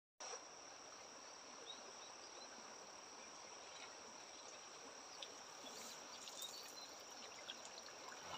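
Faint, steady, high-pitched insect chirring over quiet riverside background. Near the end come scattered drips and small splashes as the bamboo lift net is raised out of the water.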